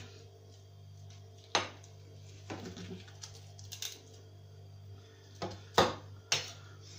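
Knife cutting into a carp's flesh and scales on a stone countertop: a handful of sharp, irregular clicks and knocks, the loudest near the end.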